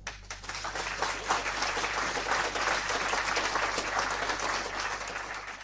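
Audience applauding: a dense, even patter of many hands clapping that fades away near the end.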